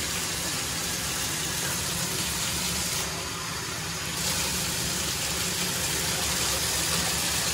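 Tap water running steadily into a bathtub, a constant rushing noise that changes briefly about three seconds in.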